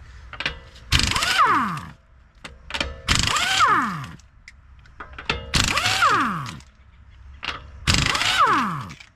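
Impact wrench with a 21 mm socket loosening a wheel's lug nuts: four bursts of hammering about two seconds apart, each ending as the motor winds down in falling pitch.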